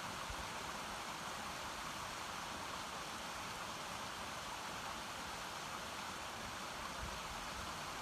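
Mountain stream water running over rocks: a steady, even rushing.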